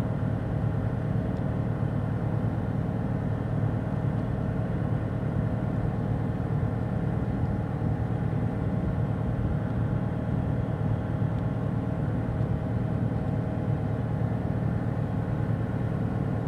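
Audi Q7 engine idling steadily, a constant low hum with no change in speed.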